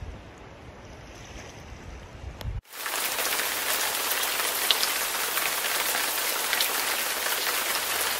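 A low rumbling noise, then an abrupt cut about two and a half seconds in to heavy rain falling with a steady, loud hiss and scattered drop ticks.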